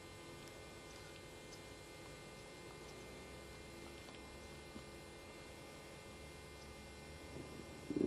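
Faint steady electrical hum, a set of unchanging tones over a low hiss, with no distinct events.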